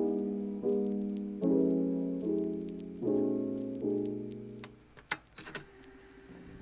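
Background piano music: soft sustained chords, a new one about every second, fading out about two-thirds of the way through. A few faint clicks follow.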